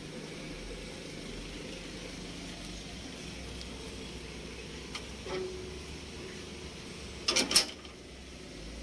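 Metal engine hood of a SANY SY215C excavator being shut, a quick cluster of sharp metallic knocks near the end, over a steady background hum.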